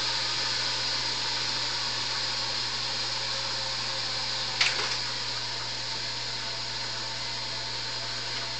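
Steady mechanical whirring hiss over a low hum, easing off slightly, with a single sharp click about four and a half seconds in.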